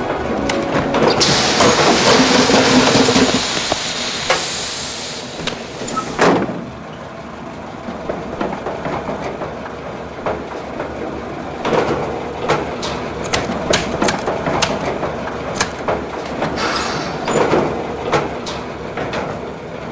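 Garbage truck machinery: a loud rushing whir for the first few seconds that cuts off suddenly, then the mechanism running more quietly under a string of sharp metallic clanks and knocks.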